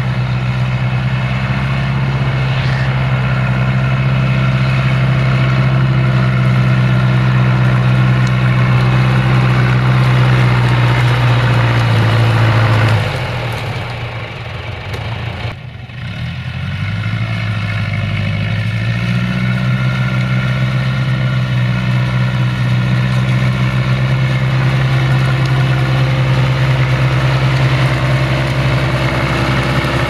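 John Deere 2040 tractor's three-cylinder diesel engine running steadily while pulling a loaded grain trailer. About halfway through, the engine note drops lower and quieter for a few seconds, then climbs back to its steady running pitch.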